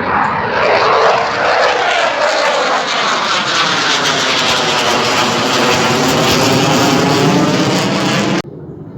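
Aircraft flying low overhead: a loud, steady rushing noise with a slowly sweeping, phasing quality, cut off abruptly near the end.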